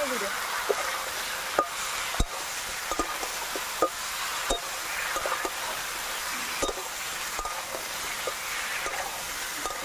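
Potato and green-banana wedges frying in oil in a metal kadai as the ground spices go in: a steady sizzle, with a flat spatula stirring and scraping them and knocking irregularly against the pan.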